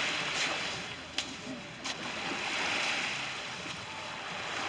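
Small waves washing onto a sandy beach: a hiss of surf that swells and fades twice, with a couple of sharp clicks in between.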